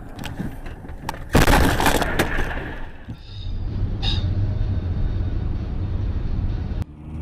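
Vehicle collision caught on a dashcam: a sudden loud crash about a second and a half in, dying away over about a second. Then a steady low hum of a car driving, heard from inside the car.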